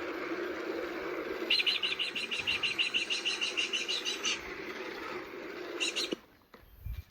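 Recorded call of the kārearea (New Zealand falcon): bursts of rapid, high, chattering notes, about nine a second, over the recording's steady background hiss. A long run of about three seconds is followed by a short burst, and the recording cuts off about six seconds in.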